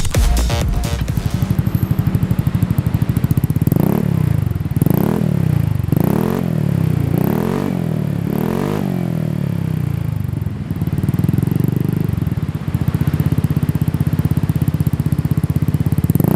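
Motorcycle engine running through an aftermarket racing exhaust, idling with a rapid pulse. About four seconds in it is blipped about five times in quick succession, each rev rising and falling back, and then it settles back to idle.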